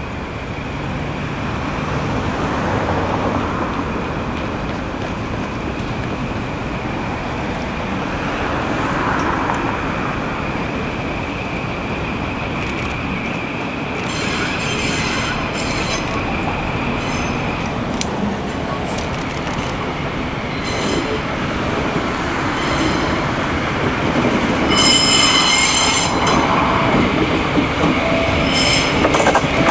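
Two coupled ND552 diesel locomotives running light and approaching slowly, their engines rumbling and growing louder as they come closer. Wheels squeal on the curved track, with sharper squeals about halfway through and again near the end.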